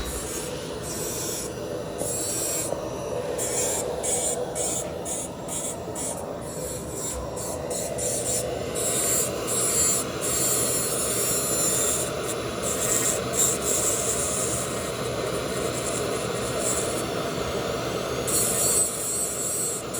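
Steady rubbing, rasping noise, like abrasive grinding, with irregular higher hissing flares.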